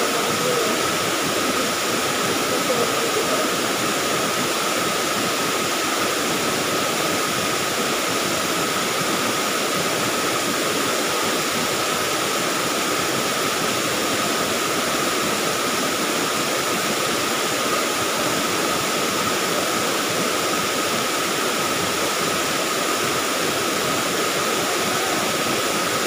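A curtain waterfall and shallow river rapids rushing, an even, unbroken noise that holds steady throughout.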